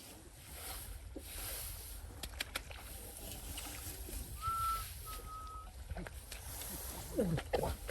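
Outdoor field ambience with a steady low rumble, a few sharp clicks, and a two-note whistle, two short flat notes about halfway through.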